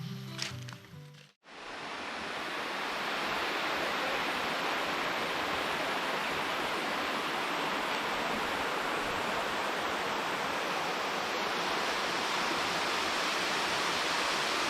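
Background music ends about a second in, and after a brief gap the steady rush of a waterfall fades in and holds.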